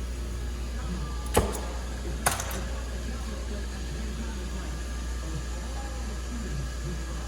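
Two sharp knocks about a second apart, the second ringing briefly, over a steady low hum.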